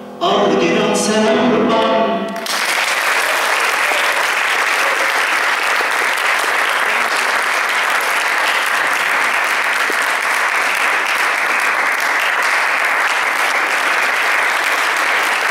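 A male singer's last sung notes, then a full audience applauding, steady and sustained, starting about two and a half seconds in.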